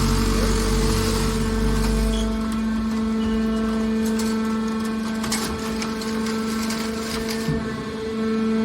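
Hydraulic metal baler running: a steady hum from its electric motor and hydraulic pump, with a deep rumble that stops about two seconds in, then scattered metallic knocks.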